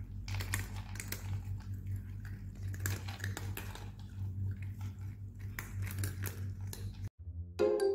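Several cats crunching dry kibble: a dense, irregular run of crisp crunches and clicks, over a steady low hum. Just after seven seconds it cuts off and a chiming musical tune begins.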